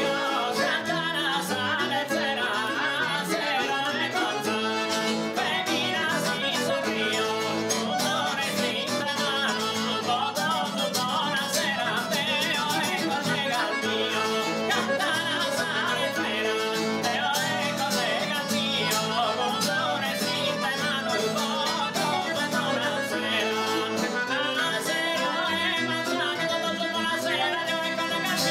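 A man singing a Sardinian mutos love song solo, with guitar accompaniment.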